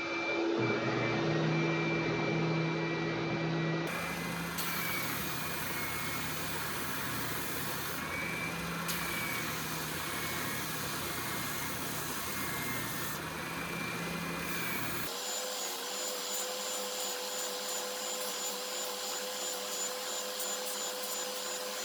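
Woodworking shop power tools running steadily, the machine sound switching abruptly several times from one steady hum to another.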